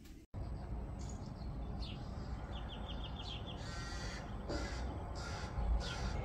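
Birds calling over a steady low background rumble: a quick run of short chirps about two and a half seconds in, then several harsher, sweeping calls near the end.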